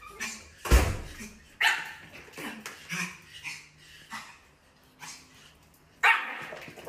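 A small dog barking repeatedly: about eight short, sharp barks at irregular intervals, the loudest near the start and about six seconds in.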